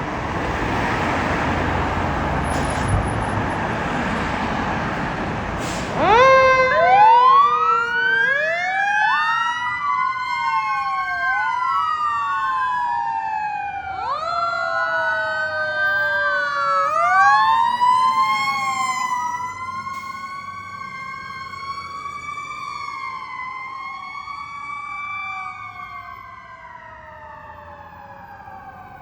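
Fire apparatus sirens: first a few seconds of steady engine and road noise, then about six seconds in two or more sirens start up together, wailing up and down and overlapping one another. Over the last ten seconds the sirens fade as they draw away.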